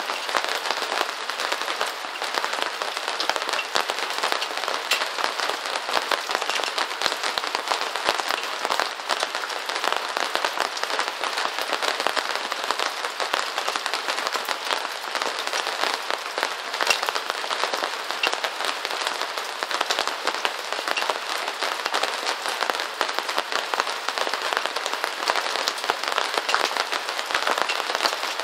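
Steady rain falling on a surface: a dense, even hiss made of countless small drop hits, with no change in strength.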